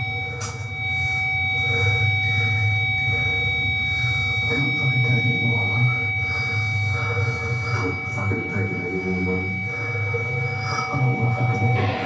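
Harsh noise music through a guitar amplifier: several steady high feedback tones held over a low droning hum, with scattered clicks and scraping noise on top.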